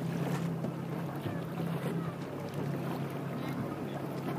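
Motorboat outboard engine running with a steady low hum, with water washing past the hull.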